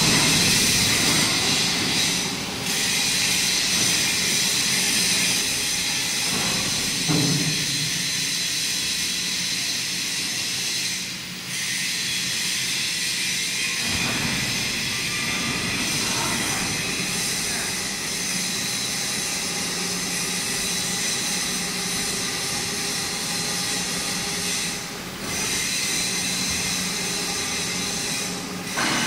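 Steady machinery noise of a large fabrication workshop: a continuous high hiss with several steady whining tones over it, dipping briefly a few times.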